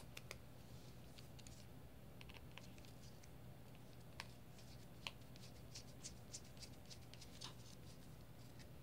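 Faint, scattered small clicks and scratches of a small screwdriver and clear acrylic case parts being handled at the LCD display module. A couple of slightly sharper ticks come around four and five seconds in.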